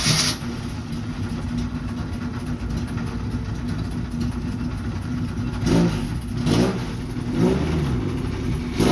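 Car engine running steadily, then revving up and down several times in the second half.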